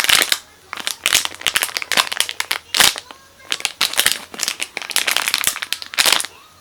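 Plastic packaging crinkling and rustling as it is handled, in quick irregular crackles.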